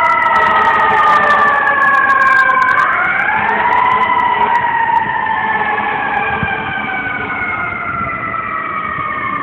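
Fire truck siren wailing: the pitch slides slowly down, sweeps back up about three seconds in, then falls slowly again. It grows fainter as the fire apparatus drives away.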